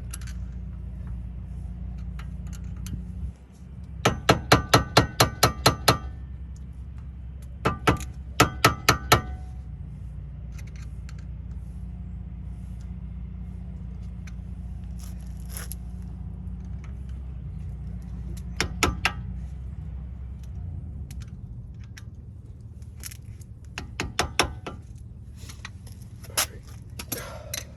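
Hand tools working a steel axle nut: runs of sharp, ringing metallic clicks, about five a second, in several bursts with pauses between. A steady low hum drops away about three seconds in.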